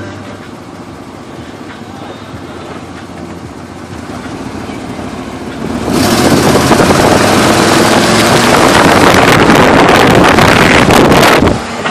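Chevy Suburban on the move, heard from a microphone held out the window beside the front tyre: steady road and tyre rumble, then about six seconds in a loud rush of wind on the microphone that cuts off sharply just before the end.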